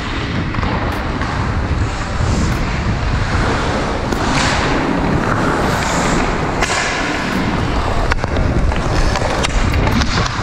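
Hockey skate blades carving and scraping on the ice, with wind rushing over the camera's microphone as the skater moves, and a couple of louder hissing scrapes near the middle. A single sharp knock about eight seconds in.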